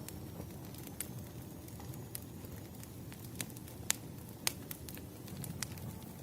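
Wood fire burning, with irregular sharp crackles and pops over a low steady rush of flame. The loudest pops come near the middle.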